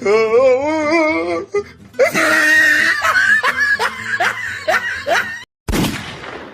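Funny laugh sound effect: a warbling, wobbly laugh, then a run of quick 'ha' pulses. About five and a half seconds in, a single gunshot sound effect cracks and fades away.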